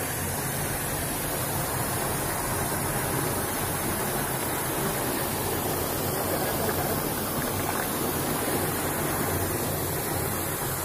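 Muddy runoff water rushing steadily over a concrete edge into a borewell recharge pit and churning inside it.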